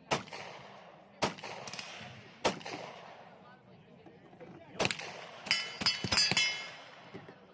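Gunshots: three single shots about a second and a quarter apart, then a quicker cluster of several shots near the end.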